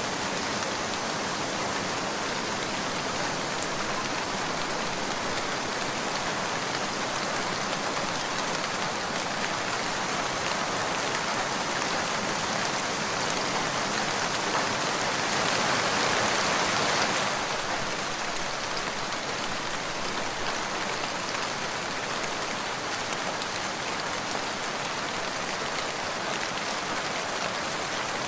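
Steady rain falling, swelling heavier for a second or two a little past halfway.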